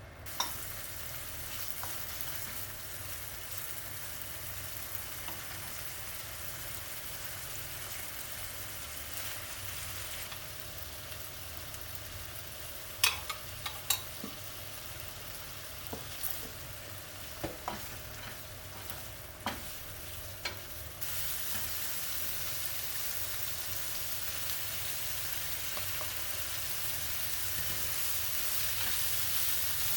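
Food sizzling in a frying pan as it is stir-fried, with a few sharp clicks of a utensil against the pan around the middle. The sizzle steps up louder about two-thirds of the way through.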